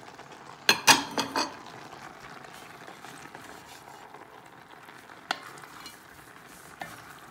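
Browned mince, cherry tomatoes and fresh oregano being stirred with a wooden spoon in an enamelled cast-iron casserole, the pan sizzling steadily on the Aga's hot plate. A quick cluster of sharp knocks of the spoon against the pot comes about a second in, and two single knocks come later.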